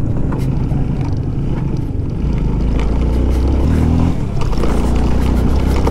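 Motorcycle engine running under way on a rough dirt road, with scattered knocks and rattles from the bumpy surface. Near the middle the engine holds one steady note for about a second, then drops.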